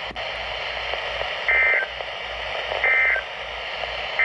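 Weather radio sounding the EAS end-of-message data signal after a severe thunderstorm warning: short bursts of buzzy digital data tone about 1.4 s apart over steady radio hiss, marking the end of the alert.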